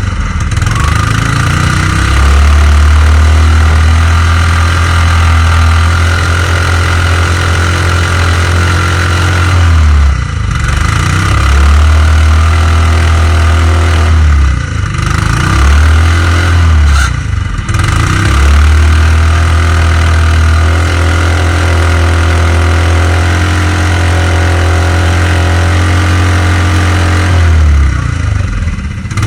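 Mud mower's small engine running hard at a steady speed, dropping off briefly and picking back up about four times as the throttle is eased and reopened.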